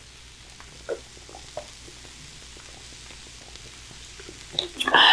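Faint steady sizzling of food heating in a pan, with a few small clicks about one and one-and-a-half seconds in. A short, much louder rush of sound comes near the end.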